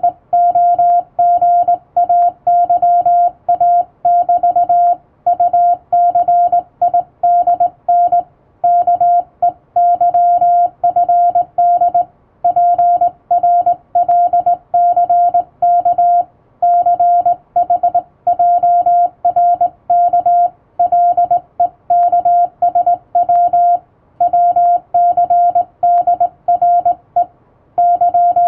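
Hand-sent Morse code on a telegraph key: a single mid-pitched sidetone keyed on and off in dots and dashes, in groups separated by short pauses, sending Latin-alphabet telegram practice text.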